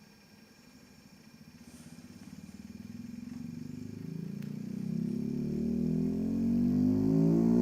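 Low bass test-tone sweep played through an electric unicycle's built-in speaker, on its way back up from the bottom of the sweep. It is barely audible at first, then glides upward in pitch and grows steadily louder, with many overtones above the tone.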